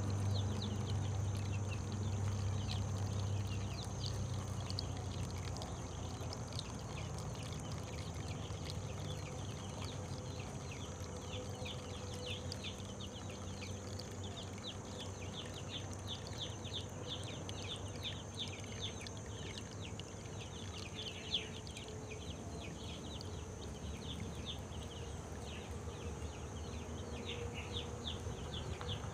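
Many chicks peeping, a dense stream of short high chirps, over a low hum that fades after the first few seconds.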